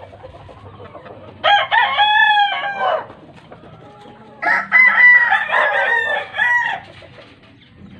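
Two rooster crows: the first starts about a second and a half in and lasts a second and a half, the second starts about four and a half seconds in and runs a little over two seconds.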